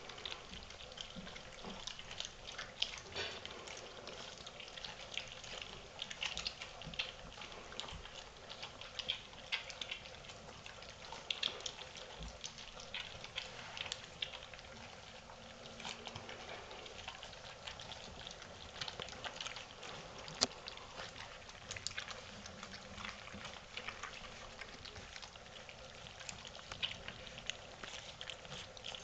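Golden retriever puppies lapping and chewing softened puppy kibble from a stainless-steel feeding pan: a faint, continuous patter of wet smacking and small clicks.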